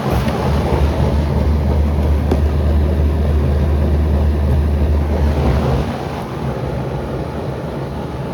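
Outdoor unit of a ductless mini-split air conditioner running up close: a steady low compressor hum under the rush of the condenser fan. The low hum falls away about six seconds in, leaving mostly the fan's airflow.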